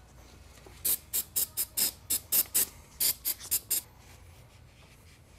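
Shop rag scrubbing the dirt bike's countershaft and the engine case around it, cleaning off grime: a quick run of about a dozen short scrubbing strokes, roughly four a second, starting about a second in and stopping near four seconds.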